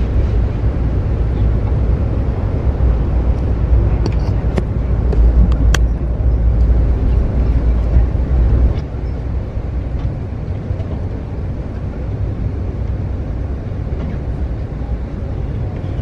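Steady low rumble of an Amtrak passenger train running, heard from inside the coach, with a few faint clicks; the rumble drops to a lower level about nine seconds in.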